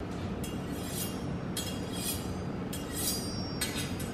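A kitchen knife drawn along a honing steel, four metal-on-metal scraping strokes about a second apart, each with a brief ringing tone.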